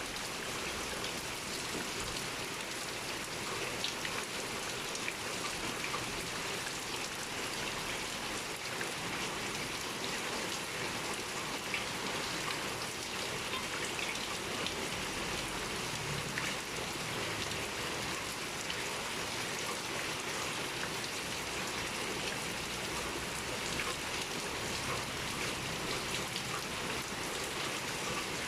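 Steady heavy rain pouring down, a dense even hiss of falling water with countless small drop taps on surfaces.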